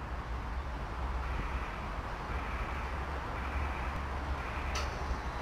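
Steady low rumble and hiss of background noise, heard from a roller coaster car standing in the station before the ride, with a faint click near the end.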